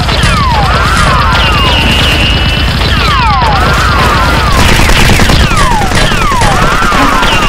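Dubbed automatic-gunfire sound effect: rapid, continuous firing with falling, laser-like 'pew' sweeps laid over it, in a loop that repeats about every three seconds.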